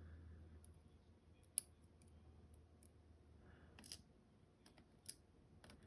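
A few faint, scattered clicks of small metal lock parts being handled, the loose sliders and pins of a gutted Caveo euro cylinder. A low hum fades out about four seconds in.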